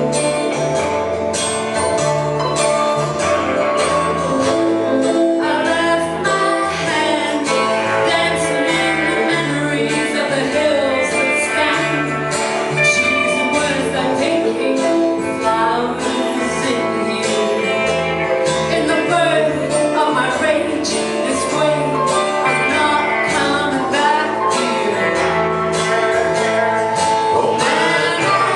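Live band playing an instrumental passage with guitar, a steady bass line and tambourine.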